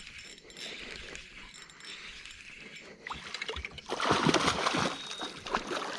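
Water splashing for about a second, starting about four seconds in, from a small hooked fish thrashing at the surface beside the boat.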